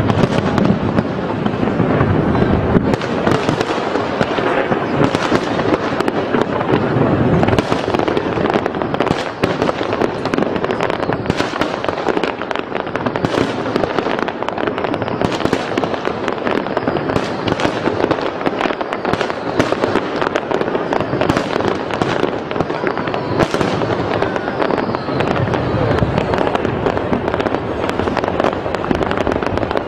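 Aerial firework shells bursting one after another in rapid succession, with dense crackling throughout.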